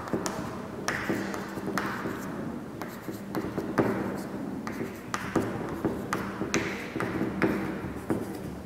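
Chalk writing on a chalkboard: a run of short scratchy strokes and sharp taps as numbers and letters are chalked on.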